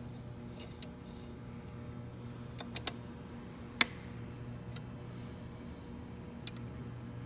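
Hand tools clicking and clinking against metal gearbox parts during disassembly: a quick run of three clicks a little before the middle, one louder clink just after it, and a faint one near the end, over a steady low hum.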